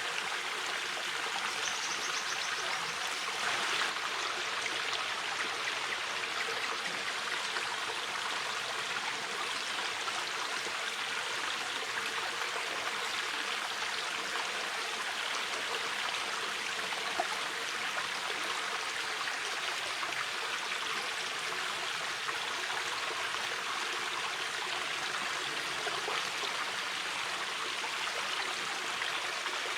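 A shallow mountain river flowing steadily over stones, a continuous rushing and babbling of water.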